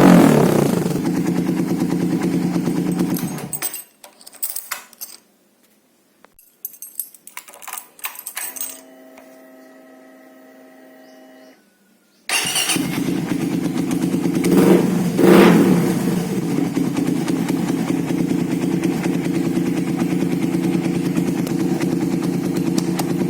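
Suzuki Satria FU 150 fuel-injected single-cylinder four-stroke engine through a Ronin aftermarket exhaust, settling to idle after a rev and then switched off about four seconds in. A few faint clicks and a faint steady hum follow, then the engine starts about twelve seconds in and idles, with two brief blips of the throttle around fifteen seconds.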